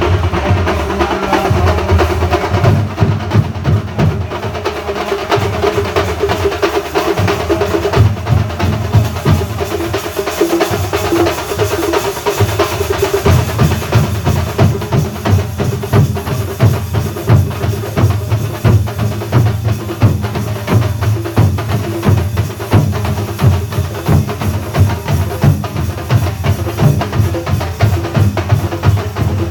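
Kerala thambolam drum ensemble playing a fast, driving rhythm of dense, even drum strokes, with a melody tune carried over the drumming.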